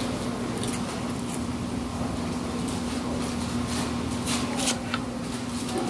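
Eating sounds: a fork clicking and scraping in a molded fiber bowl, with chewing, a few short clicks in the second half. A steady hum from the room runs underneath.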